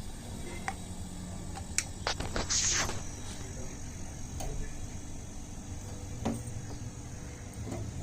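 Refrigerator compressor running with a steady low hum, with a few light clicks and a short hiss about two and a half seconds in.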